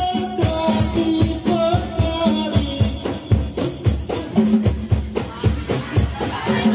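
Rebana frame drums of a hadroh group beating a steady rhythm of about two strokes a second, with jingling, under voices singing.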